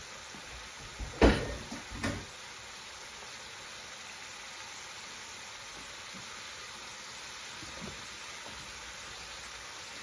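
Chicken chaat curry base cooking down in a pan on a gas hob: a steady sizzle. Two sharp knocks come about a second and two seconds in.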